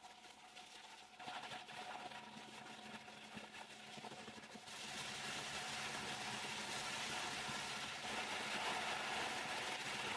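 Plastic bottle recycling machinery running, a steady mechanical din with a few held hum tones. It grows louder about a second in and again near five seconds.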